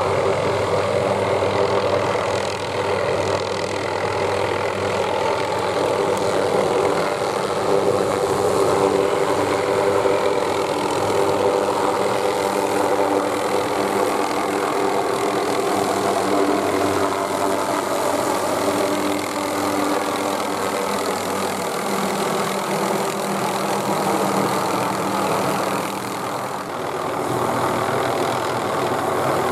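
Hughes 369E (MD 500E) helicopter hovering low overhead: the steady whine of its Allison 250 turboshaft and the buzz of its five-bladed main rotor. The pitch sags slightly about two-thirds of the way through and the sound dips briefly near the end.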